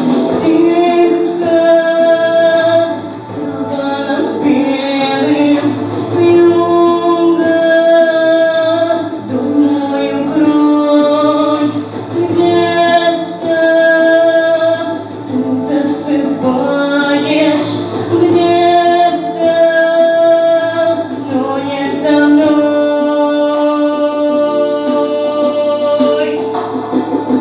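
Vocal music: sung phrases of long held notes, one after another, with short breaks between them.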